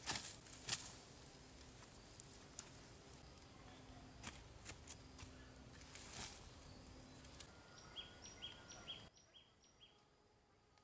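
Loose dry soil poured from a woven basket onto heaped earth, a short rushing hiss at the start and again about six seconds in. Near the end a bird gives a quick run of short high chirps.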